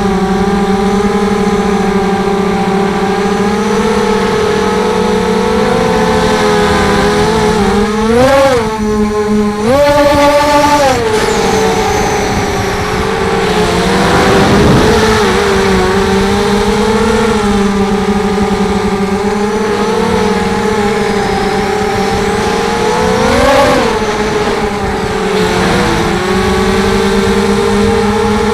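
The brushless motors and Gemfan 5045 propellers of a ZMR250 quadcopter running with a steady high whine. The pitch rises briefly several times as the throttle is pushed, the biggest rise held for about a second around ten seconds in.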